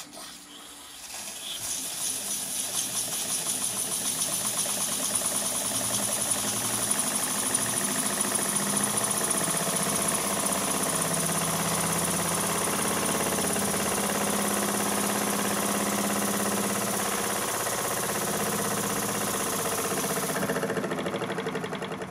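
Small lathe-built single-cylinder steam engine running on steam from a homemade boiler, with rapid, even chuffing and hissing. It builds up over the first few seconds after the steam valve is opened, runs steadily while driving a small belt-driven generator, and slows and fades near the end.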